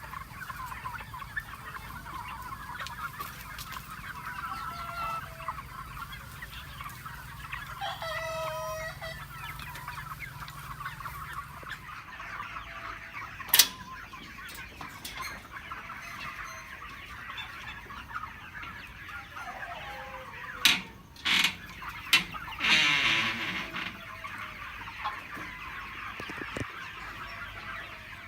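A flock of free-range chickens clucking and chattering without a break, with a longer, louder call from a rooster about two-thirds of the way through. A few sharp knocks cut in: one about halfway and three in quick succession shortly before the rooster's call.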